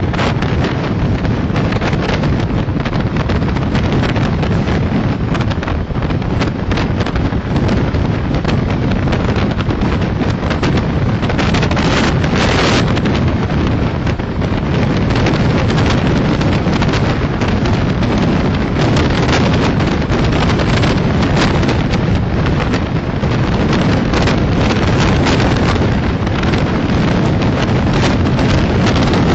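Loud wind buffeting a microphone held out of the window of a passenger train running at speed, over the steady rushing noise of the train. The gusts come and go unevenly.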